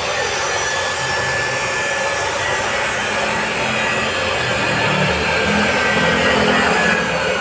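Steady, loud mechanical whir and hiss with a constant high-pitched whine over a wavering low hum, like machinery or a motor running.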